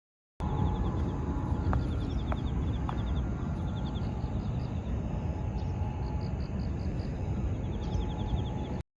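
Outdoor ambience: a steady low rumble of wind or distant traffic with rapid, high repeated chirping trills from birds or insects, starting and stopping abruptly.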